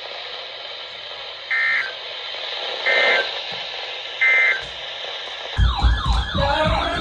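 Three short EAS/SAME end-of-message data bursts from a weather-radio broadcast, each a fraction of a second long and about a second and a half apart, over steady radio hiss; they mark the end of the alert. About five and a half seconds in, a loud siren starts, quickly sweeping up and down.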